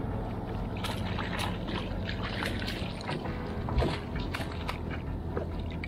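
A summer flounder splashing at the surface and being scooped into a landing net beside a kayak: short splashes of water over a steady rumble of wind on the microphone, with one thump just before four seconds in.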